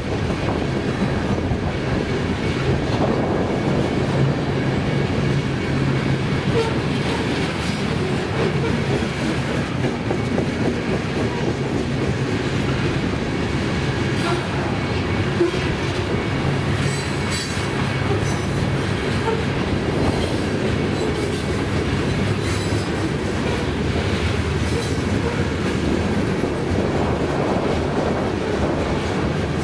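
Loaded covered hopper cars of a freight train rolling past at speed: a steady rumble of steel wheels on the rails, with occasional clicks as wheels cross the joints.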